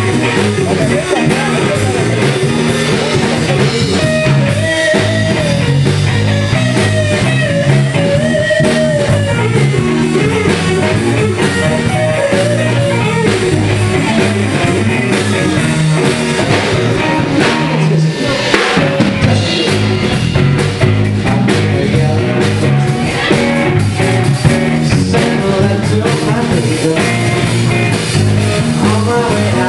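Live band playing: electric guitar over a drum kit, with singing at times, loud and continuous.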